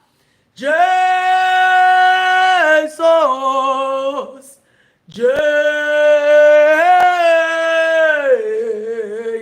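A single voice singing "Jesus" unaccompanied in two long drawn-out phrases. Each is held on a steady note and then steps down to a lower one at its end, as a chanted prayer.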